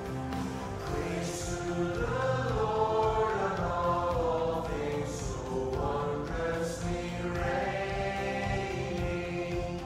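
A congregation singing a hymn to instrumental accompaniment. The music plays alone at first, and the voices come in about a second in.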